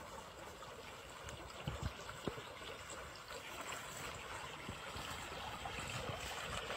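Water splashing and gurgling in a shallow channel where a hooked fish is thrashing at the end of the line, growing louder toward the end. A few dull thumps come about two seconds in.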